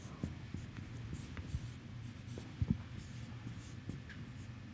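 Marker pen writing on a whiteboard: short scratchy strokes that come and go, over a low steady room hum, with one knock a little past halfway.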